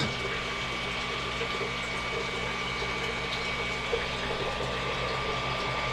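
Steady whirring hum of a Voxelab Aquila X2 3D printer's fans running while it sits powered on, with two faint high steady whines over it.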